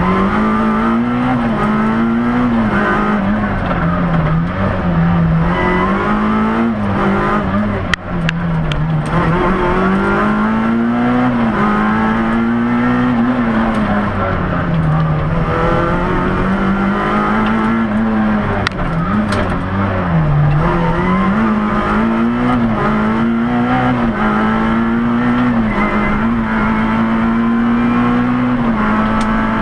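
Peugeot 106 rally car's engine heard from inside the cabin at full stage pace, its note climbing and dropping again and again as the driver accelerates, shifts and lifts. There is one sharp knock about eight seconds in.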